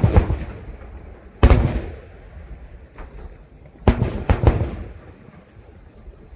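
Aerial fireworks bursting: a bang at the start and another about a second and a half in, then a quick run of several bangs about four seconds in, each trailing off in a long echo.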